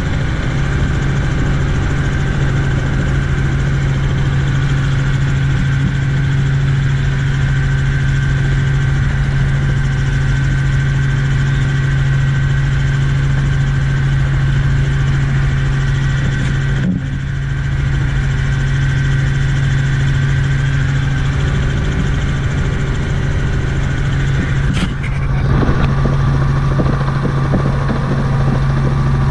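Helicopter engine and rotors in flight, heard inside the cabin as a loud, steady drone with a strong low hum. The sound dips briefly and shifts slightly once about two-thirds of the way in and again near the end.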